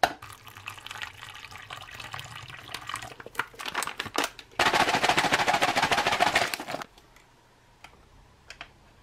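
A foil ration beverage pouch crinkling and rustling as it is handled, then about two seconds of liquid pouring from the pouch into a glass, the loudest part, trailing off into a few faint drips.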